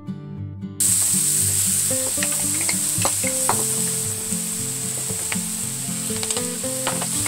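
Onions and garlic sizzling in hot oil in a stainless steel pot, the steady hiss starting abruptly about a second in. Light clicks and scrapes come as sliced mushrooms and diced bell peppers are pushed off a plate into the pot with a wooden spoon.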